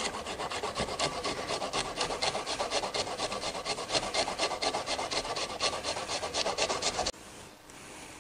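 A garlic clove being grated on a fine rasp grater, with quick, even scraping strokes several times a second that stop about seven seconds in.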